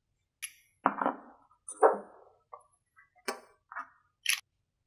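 An 18650 battery being loaded into a Nitecore P12 anodized-aluminium flashlight: a series of short clicks, knocks and brief scrapes from the tail cap, cell and body being handled.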